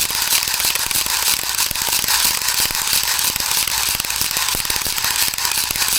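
Airsoft BB speed loader forcing BBs into a PTS EPM1 spring-loaded 250-round magazine: a rapid, continuous stream of ratcheting clicks.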